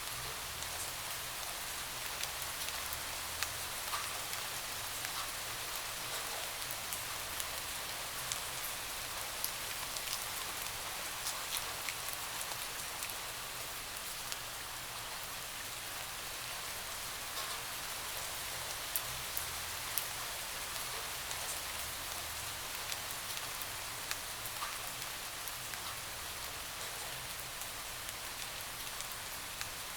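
Steady rain pattering on a window, an even hiss with many small scattered drop ticks.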